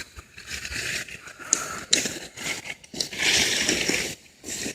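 Rustling and crunching of dry leaves and twigs, in irregular bursts with a couple of sharp snaps about one and a half and two seconds in, as of footsteps through cut brush.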